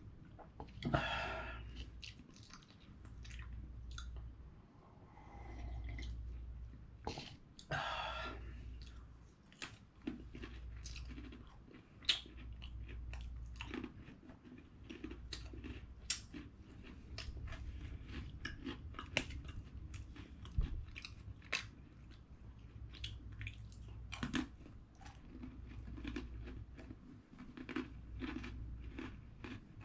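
Close-up chewing and crunching of food, with many small sharp crunches throughout and two louder slurps in the first eight seconds, over a low steady hum.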